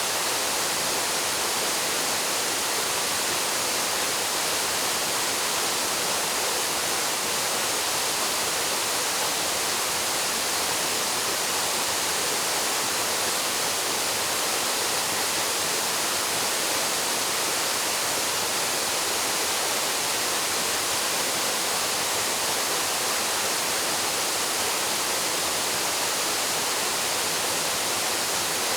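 Waterfall: a steady, unbroken rush of falling water, with a hissing, high-weighted sound.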